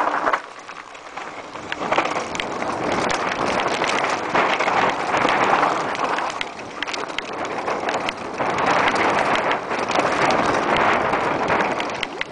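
Mountain bike tyres rolling fast over a loose, dry dirt and gravel trail: a continuous crunching hiss that swells and eases with the terrain, peppered with small clicks and rattles from stones and the bike.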